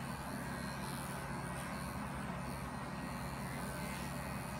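Electric animal clippers running with a steady hum, shearing angora wool from a German angora rabbit's leg.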